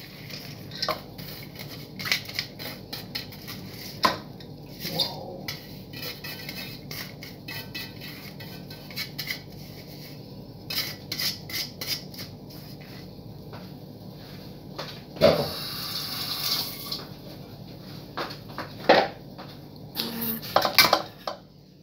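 Stainless steel pots knocking and scraping against each other as cooked white rice is tipped and shaken out of one into a large stockpot, with many irregular clanks and clicks and a louder, longer burst of noise about fifteen seconds in.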